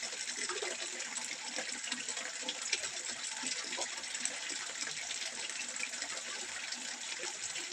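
Water trickling steadily into a fish pond, an even splashing hiss full of small droplet ticks.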